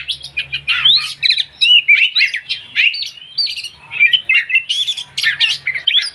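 Velvet-fronted nuthatch ("pastur"), a five-month-old kept songbird, singing a rapid, varied chatter of short high notes and quick slurs, thinning briefly about halfway through.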